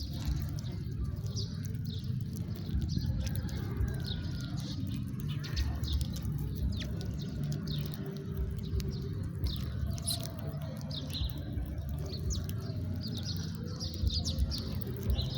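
Flock of house sparrows chirping, with many short chirps overlapping throughout, over a steady low rumble.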